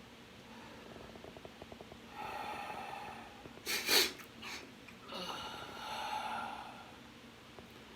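A sleeping person breathing noisily through a stuffy nose. A faint rattling snore comes about a second in, then a breath, then a sharp double sniff-snort near the middle, the loudest sound, followed by a long breath.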